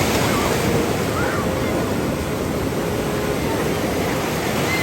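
Ocean surf on a beach: a steady, even rush of breaking and washing waves.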